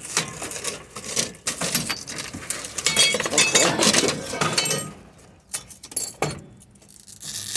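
Scrap metal and loose bits of glass clinking and clattering as pieces are handled and pulled out of a pile. A busy run of knocks and clinks lasts about five seconds, then a few scattered knocks.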